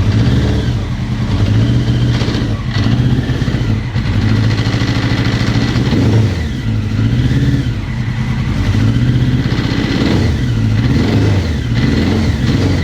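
1999 Honda CBR900RR Fireblade's inline-four engine running and being revved up and down several times. The owner reports a knocking noise from this engine, along with power loss.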